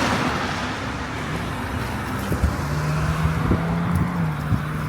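Road traffic noise heard from a moving e-bike. A car passes at the start, its sound fading, and a steady low hum comes in about halfway through.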